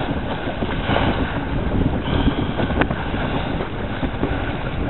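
Strong wind buffeting the microphone over the rush and splash of choppy water around a small sailboat beating to windward.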